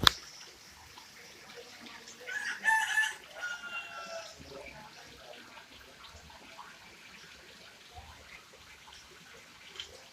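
A rooster crowing once, about two seconds in, the call falling in pitch at its end. A sharp click sounds right at the start.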